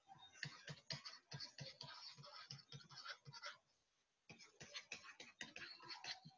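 Faint, irregular tapping and scratching of a stylus writing on a tablet, with a brief pause about two-thirds of the way through.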